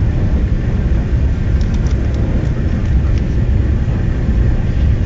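Steady low rumble and rush of a TGV Atlantique high-speed train running at speed, heard inside the passenger car, with a few faint clicks about one and a half to two seconds in.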